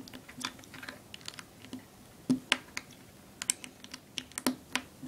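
Small Lego bricks clicking as they are pressed together and handled on a wooden tabletop: about a dozen irregular, sharp little clicks and taps.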